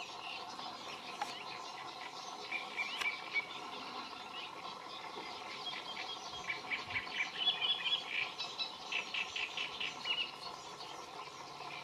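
High-pitched squeaky bird calls: many short notes repeated in quick runs, busiest between about six and ten seconds in.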